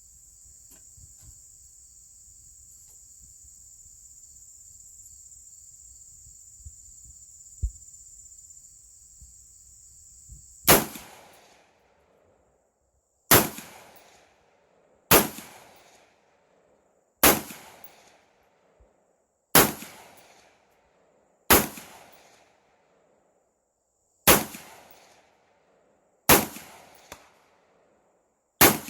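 Crickets chirring steadily for about ten seconds. Then a 6.5 Grendel AR-15 rifle fires nine single shots at an even pace, about two seconds apart, each shot followed by a short fading echo.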